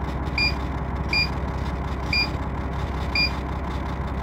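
Four short, high beeps about a second apart from a Tecnomotor Raster 3S diagnostic scanner as its keys are pressed to scroll down the live readings. Under them runs the steady low drone of the Mercedes-Benz O 500's diesel engine idling at about 655 rpm.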